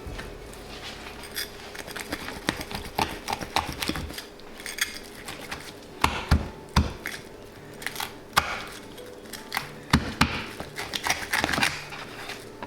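Knife cutting through a fish on a cutting board: irregular clicks and taps of the blade with short scraping strokes.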